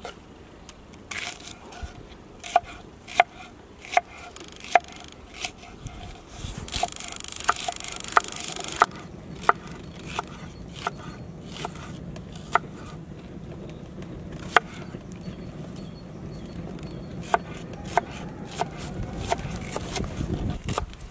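Knife chopping a raw onion on a thick wooden cutting board: sharp, irregular knocks of the blade hitting the wood, about one or two a second.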